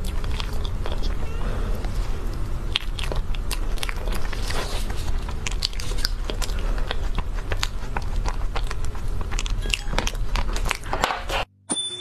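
Close-miked chewing and biting of mousse cake, a dense run of small wet mouth clicks and smacks, which stops abruptly near the end.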